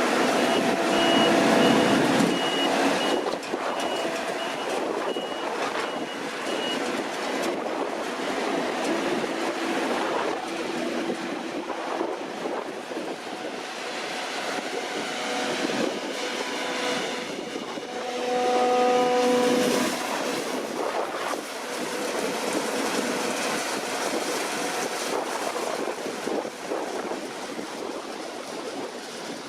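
Deutz-Fahr C9306TS combine harvester running and working, a steady heavy mechanical noise of engine and threshing machinery that swells briefly about two-thirds of the way through. A reversing alarm beeps repeatedly, about twice a second, for the first several seconds.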